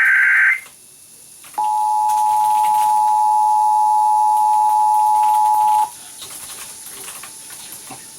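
The tail of an Emergency Alert System SAME header, a short burst of digital data tones, ends about half a second in. About a second later the EAS two-tone attention signal (853 and 960 Hz sounded together) holds steady for about four seconds, announcing the start of an EAS test message.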